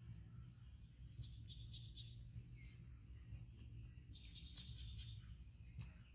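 Faint outdoor background: scattered small chirps and ticks over a steady high hiss and a low rumble.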